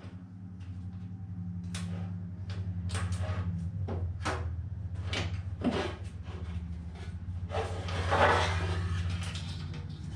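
Knocks, clinks and scraping of metal scooter parts being handled as a Vespa's loose front fork is worked out of the frame, with a louder scraping rattle about eight seconds in. A steady low hum runs underneath.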